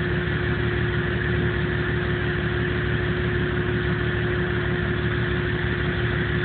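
1997 Jeep Cherokee engine idling steadily, with a low pulsing rumble and a constant hum over it. The owner calls it a rough idle and says it runs badly without any trouble codes or check-engine light.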